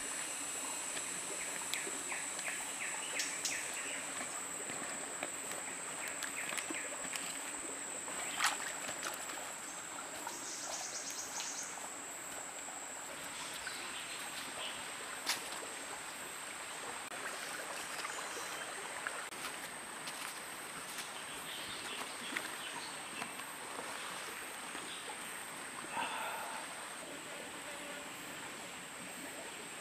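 Shallow forest stream running over rocks, a steady rushing, with a steady high-pitched whine above it. About two seconds in there is a short run of chirps, and a few sharp clicks come later.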